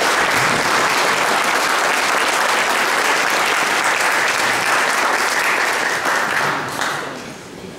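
Audience applauding, a steady dense clapping that fades out near the end.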